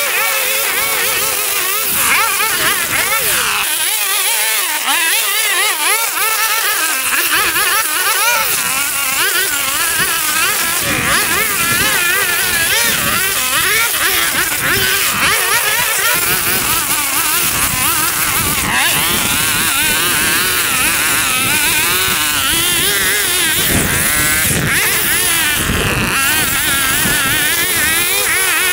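Small gasoline engine of lawn-care equipment running steadily under load, its pitch wavering up and down as it works through overgrown grass.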